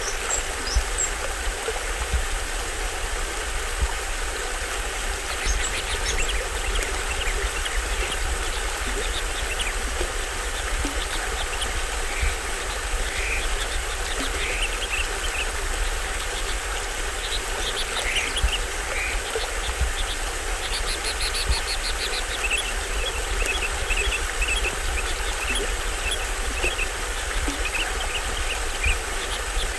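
Small waterfall on a stream rushing steadily with a low rumble, while forest birds chirp over it: scattered calls, a quick trill about two-thirds of the way in, and a run of short repeated chirps near the end.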